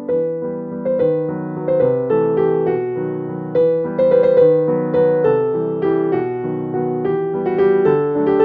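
Background piano music, a run of struck notes.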